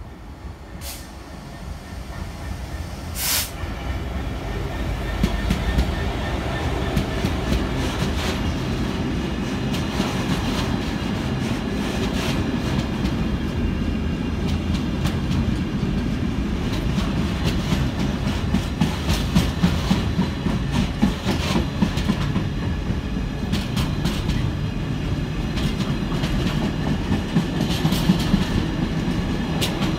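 Container freight train passing through behind an electric locomotive. It grows louder over the first few seconds as it arrives, then the wagons run past steadily, wheels clattering over the rail joints.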